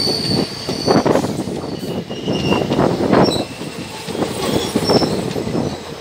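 Indian Railways ICF passenger coaches rolling slowly past with the brakes on: brake blocks squealing on the wheels in several short, high, thin tones that come and go over the rumble and clatter of the wheels on the rails.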